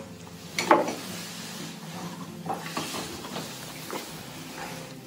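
Bilge water splashing and sloshing as it is scooped out by hand into a bucket, in a few brief irregular splashes, the loudest about a second in.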